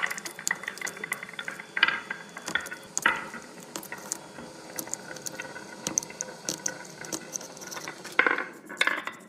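Cracked iPhone 16 back glass crackling and clicking as a tool scrapes and picks the shards off, with louder bursts of scraping about two and three seconds in and near the end.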